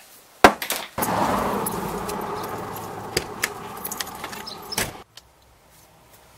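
Keys jangling and clicks from a Volkswagen van's driver's door being opened as someone climbs in, over a steady rushing outdoor noise that fades slowly and then cuts off.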